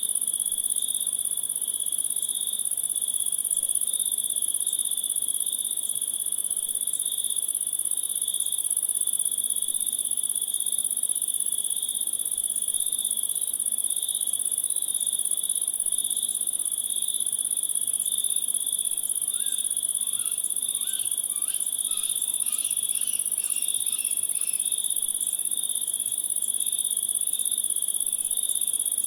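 Steady, unbroken chorus of crickets and other insects chirring. About two-thirds of the way through, a short run of faint chirps sounds over it.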